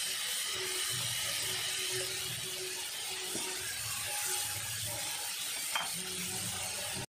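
Cumin paste and ground spices sizzling and bubbling in hot oil in a cast-iron kadai, a steady frying crackle.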